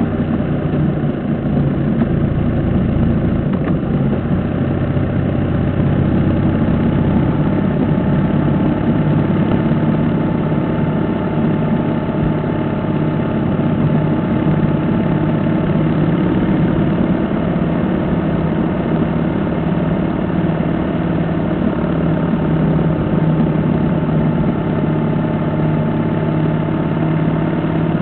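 Motorcycle engine running steadily at a cruise, with road and wind noise, heard from on the bike.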